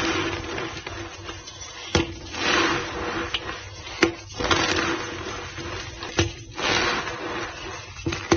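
White gym chalk powder being pressed and crushed into a block by hand, giving a gritty, squeaky crunch. Sharp knocks come about every two seconds, each followed by a brief crumbling hiss.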